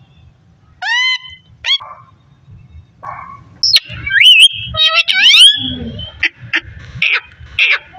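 Indian ringneck parakeet calling: a string of short, upward-gliding whistled calls and squawks, sparse at first, busiest and loudest around the middle, then a few short calls near the end.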